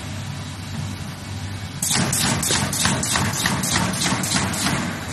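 Automatic corrugated partition assembly machine running with a steady hum. From about two seconds in it gives a fast run of clacks, about four or five a second, as it slots cardboard partition pieces together.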